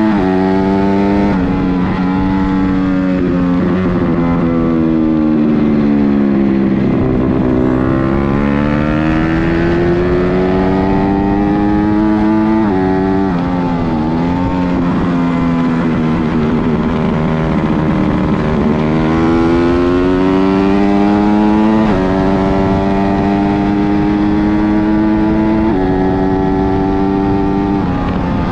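Twin-cylinder racing motorcycle engine at hard throttle, its pitch climbing through the gears with sudden drops at each shift and longer falls as it slows for corners.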